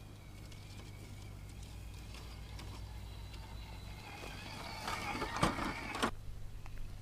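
Electric motor and gears of an Axial SCX10 II Deadbolt RC crawler whining as it drives, growing louder with sharp clicks and crunches of the truck working over rocks from about five seconds in, then stopping abruptly about six seconds in.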